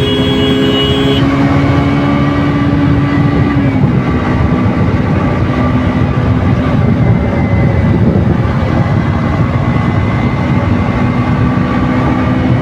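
KTM RC 200 on its stock exhaust, a 200 cc single-cylinder four-stroke, running steadily under way, with wind and road noise. The engine note drops about four seconds in and then holds steady. A short high tone sounds over it right at the start.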